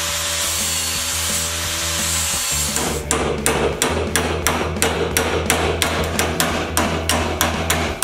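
Angle grinder grinding a small square metal tube piece held in a vise, stopping about three seconds in; then a small hammer tapping the metal piece rapidly, about three to four blows a second.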